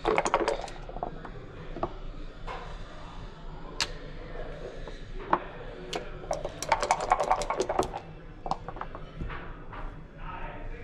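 Backgammon play at the board: sharp clicks of checkers being set down, and about two-thirds of the way in a dense run of rapid clicking as dice are rolled onto the board.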